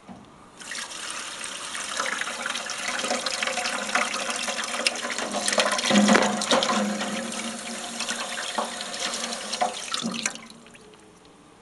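Water running from the Olis pasta cooker's filling tap into its stainless steel tank. It starts suddenly about half a second in, swells to its loudest near the middle, and cuts off shortly before the end.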